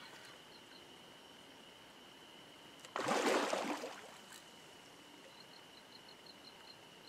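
A small hooked flathead catfish splashes at the water's surface for about a second, about three seconds in, as it is reeled in. Under it, a steady high-pitched hum and a quick repeating chirp carry on.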